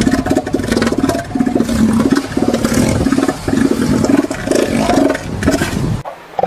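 Northern elephant seal bull's threat call: a rapid, pulsing throb in repeated bursts, stopping near the end. It sounds like an old bulldozer being started.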